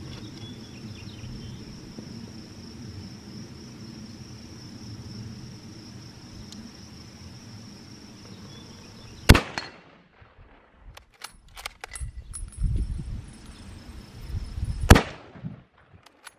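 Two shots from a 9.3x62mm Mauser bolt-action rifle, about nine seconds in and again about five and a half seconds later, with metallic clicks of the bolt being worked between them. Crickets chirp steadily until the first shot.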